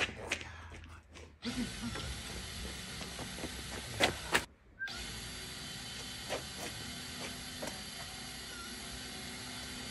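Footsteps and a dog's paws on asphalt: light, scattered taps and clicks over a steady background hiss, with one louder sharp click about four seconds in.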